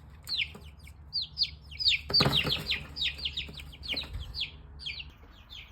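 Baby chicks peeping: a rapid run of short, high chirps, each sliding down in pitch, with a brief rustle about two seconds in.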